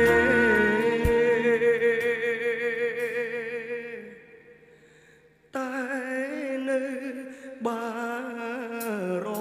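A man singing a song with musical accompaniment, holding long wavering notes. The music fades to near silence about four seconds in, then the singing and accompaniment come back abruptly a second and a half later.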